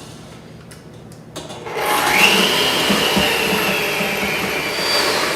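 An electric mixer starts up about two seconds in, its whine rising quickly and then running steady, beating eggs and egg whites in a bowl until frothy. A few light clicks come before it starts.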